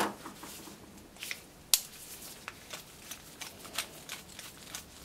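Light, scattered clicks and ticks of a small metal carburetor and a screwdriver being handled in plastic-gloved hands as the screwdriver tip is fitted into the main jet, with one sharper click about one and three-quarter seconds in.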